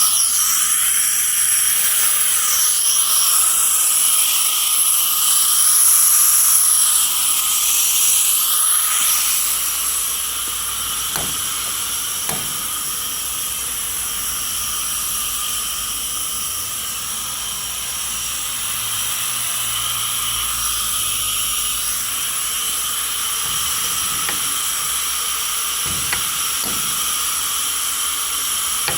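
Hitachi PSD-3.7A inverter-driven scroll air compressor running, a steady high-pitched whine made of several tones over a hiss. It is a little louder for the first ten seconds or so, with the pitch sweeping up and down, then settles.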